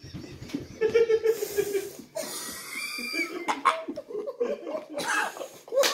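A man laughing in broken chuckles and snickers, with breathy gasps.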